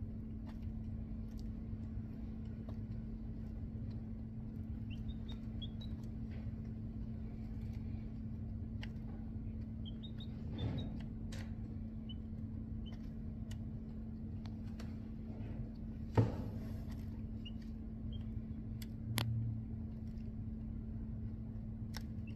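Chicks peeping faintly now and then and clicking their beaks as they peck feed from a plastic feeder, over a steady low hum. One sharper click about sixteen seconds in.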